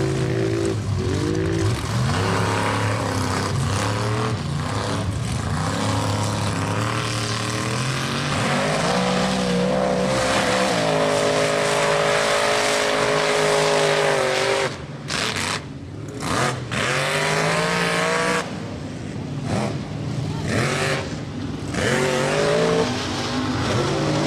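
Engine of a 2600-horsepower mega mud truck revving hard under load through the mud bog. Its pitch climbs and holds high for a few seconds, then drops away and surges again in short bursts as the throttle comes on and off.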